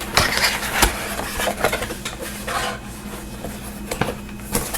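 A product box being opened by hand: packaging scraping and rustling in uneven bursts, with a few sharp clicks and knocks.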